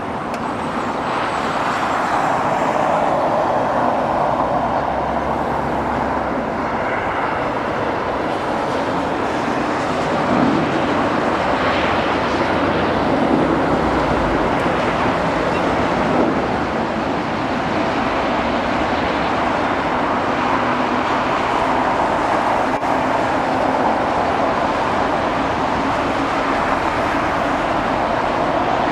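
Steady noise of jet airliner engines, building over the first couple of seconds and then holding.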